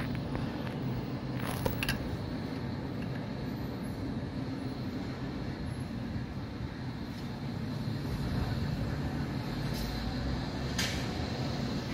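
Diesel engine of a MAN TGM 18.290 refuse truck running as the truck pulls away and drives off, a steady low rumble.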